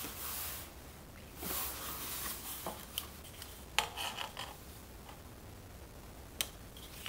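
Pencil scratching across paper as straight grid lines are drawn along a wooden ruler, two strokes in the first two seconds. Then come a few sharp light knocks as the ruler is moved and set down on the paper.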